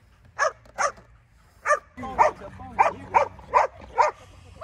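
A Rottweiler barking repeatedly, about ten short barks, coming faster from about two seconds in. It is barking eagerly at a balloon held up in front of it.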